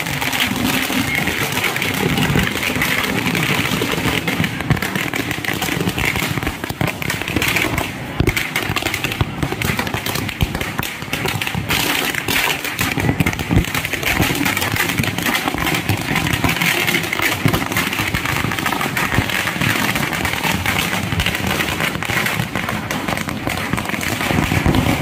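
A long string of firecrackers burning along the ground, going off in a rapid, unbroken run of sharp bangs and crackles.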